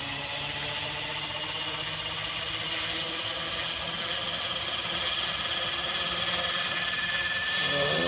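700-size electric RC helicopter (KDS Agile 7.2) spooling up on the ground: a steady motor whine and rotor whoosh that slowly rise in pitch and grow louder as the head comes up to speed.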